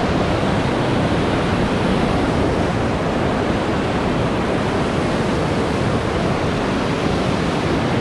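Steady rush of whitewater from a river rapid, an even, unbroken roar of churning water.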